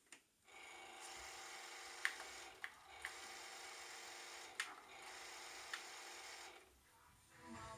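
Radio tuner of a Sony FH-B177 mini hi-fi putting out low static hiss with faint whistling tones, broken by about five sharp clicks; the hiss drops away and a music station comes in near the end.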